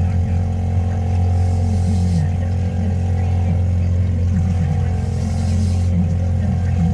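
Boat engine running steadily at trolling speed: a low, even drone with steady tones above it. A faint high hiss rises twice.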